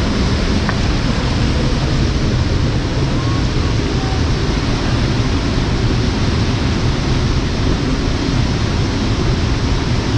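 River water rushing steadily over rocks, a continuous loud rushing noise that does not change.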